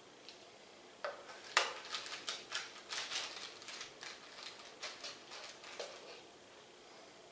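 Kitchen tongs clicking and scraping against an air fryer basket as jalapeno poppers are picked out: a quick, uneven run of clicks and scrapes starting about a second in, the sharpest just after it starts, dying away about six seconds in.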